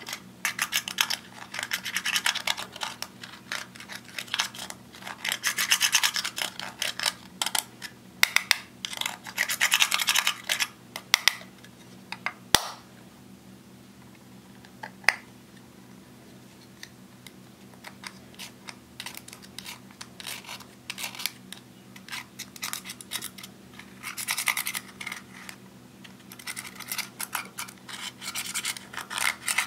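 A small metal spatula scraping pressed eyeshadow out of plastic compacts: bursts of rapid scratching strokes with short pauses between them. There is a single sharp click about halfway through, followed by a quieter lull before the scraping resumes.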